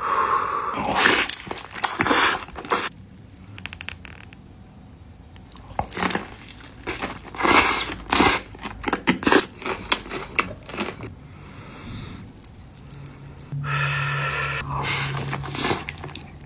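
Close-miked eating sounds: a person biting and chewing fried chicken and spicy noodles, in a string of irregular crackly, crunchy bursts with quieter wet chewing between them. A steady low hum comes in near the end.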